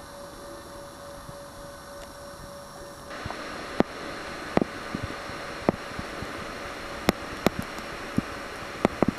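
Faint steady hiss with a thin hum from the camcorder for about three seconds. Then a louder steady rushing noise comes in, with scattered sharp clicks, about a dozen and more frequent near the end.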